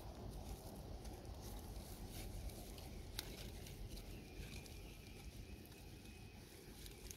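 Faint crinkling and rustling of a plastic-wrapped air-layer bundle being handled and bound with tape, with a few soft clicks over a steady low rumble.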